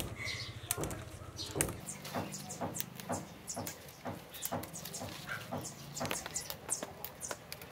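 Light clicks and rustling, a little more than two a second, from plants being handled and picked by hand and from sandalled steps along the garden path.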